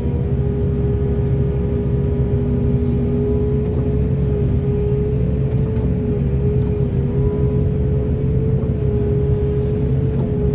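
Large hydraulic excavator running at work: a steady diesel drone with a held, slightly wavering whine over it, broken by several short hissing bursts.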